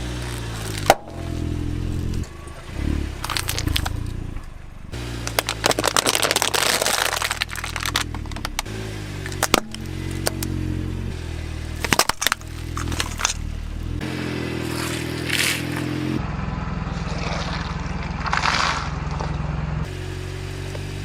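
A car engine running at low speed while its tyre rolls over and crushes objects: a series of cracks, crunches and scraping, in short clips that change abruptly.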